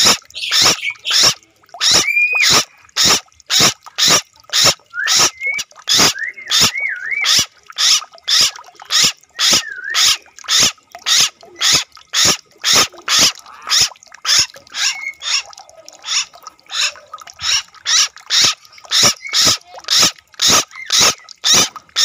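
Frogs calling in a rice paddy: short croaks repeated at an even pace of about two a second without a break, with a few wavering whistled notes from about five to ten seconds in.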